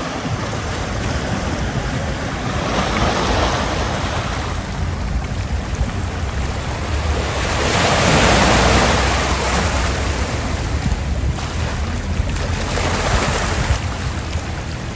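Sea waves washing onto a rocky shore, swelling and easing about every five seconds, with wind rumbling on the microphone.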